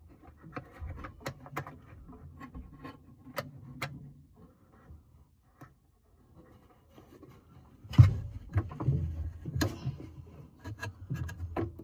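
Hands working on a washing machine during a belt change: scattered clicks and rubbing, a quiet stretch in the middle, then a run of louder knocks and handling noise about eight seconds in.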